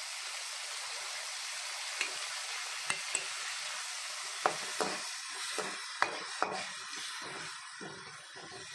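Onions, garlic, green chillies and freshly added ginger paste sizzling in hot oil in a metal kadai. A steel ladle stirs and scrapes through it, clicking against the pan now and then from about two seconds in.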